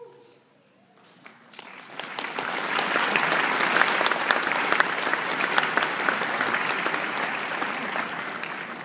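Audience applauding: many hands clapping that start about a second and a half in, swell to a steady loud clapping and taper off near the end.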